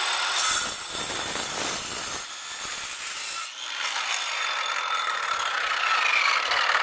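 Black & Decker 10-amp corded circular saw cutting through a wooden board, its motor whine falling in pitch near the end as the blade winds down.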